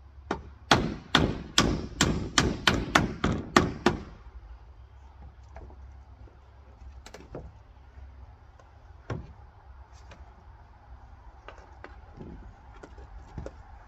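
Hammering: about ten quick, sharp blows at roughly three a second, then a few scattered light knocks.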